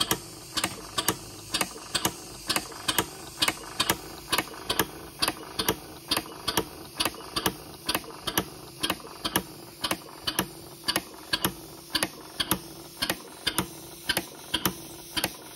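Large model mill steam engine running on compressed air, its snap-action poppet valves clicking sharply at about three clicks a second, often in close pairs, over a steady low hum.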